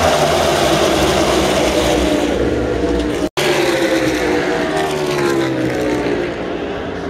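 NASCAR Cup Series stock cars' V8 engines at speed, passing in a pack, each engine note falling in pitch as the cars go by. The sound drops out for an instant a little over three seconds in, then the engines of more passing cars follow.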